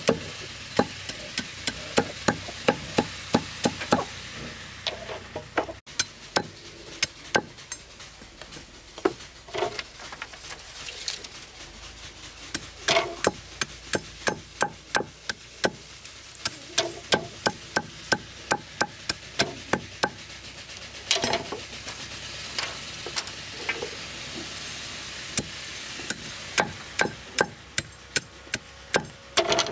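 A large knife chopping bamboo slats against a wooden log block, cutting points on the stakes. The sharp chops come in quick runs of about three a second, with short pauses between runs.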